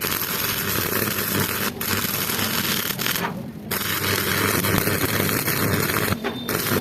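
Metalworking on steel rebar: a harsh, steady hiss and crackle that starts suddenly, breaks off for about half a second midway, and stops just before the end.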